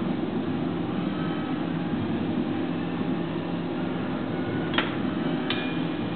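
Electric potter's wheel running with a steady hum while wet clay is thrown on it. Two short clicks come about five seconds in.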